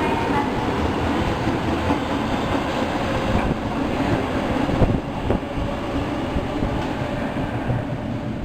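Osaka Metro Tanimachi Line subway train running, a steady rumble of wheels on track. A sharp knock about five seconds in, after which the running noise is slightly quieter.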